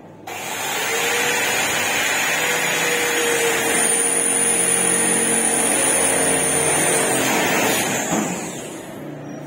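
Handheld electric drill starting suddenly and running steadily with a whine for about eight seconds, then fading away.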